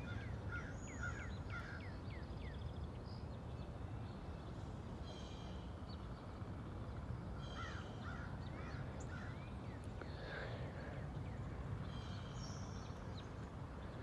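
Birds calling: two runs of short chirps and a few harsher, buzzy calls, over steady wind noise.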